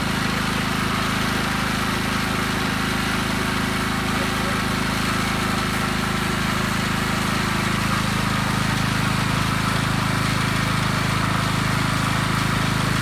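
Small gasoline engine of a pressure washer running steadily.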